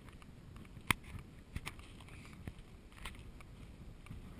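Faint, muffled steady noise picked up by a camera riding on an FPV drone in flight, with a few sharp clicks; the loudest click comes about a second in.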